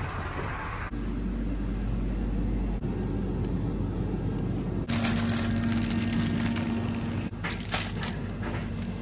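Steady hum and hiss of a shop interior that changes abruptly a few times. A little after seven seconds in, plastic food packaging crinkles briefly in the hand.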